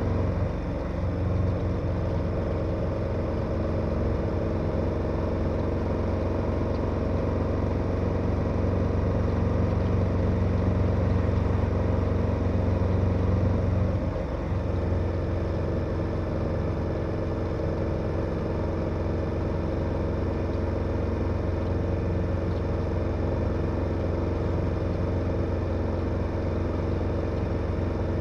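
KTM 1290 Super Adventure's V-twin engine running at steady road speed. About halfway through the engine note dips briefly, then settles into a slightly different steady pitch.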